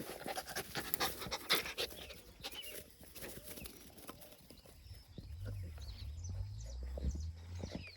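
A dog panting in quick breaths, with small birds chirping in the second half and a low steady hum from about five seconds in.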